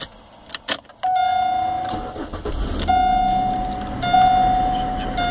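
A few clicks of a car key turning in the ignition. About a second in, the car's warning chime starts: one tone struck again roughly every second, each strike fading, with a low hum building beneath it.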